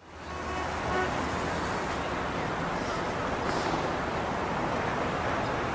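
Steady ambient background noise, a low rumble with hiss, fading in over about the first half second and then holding level.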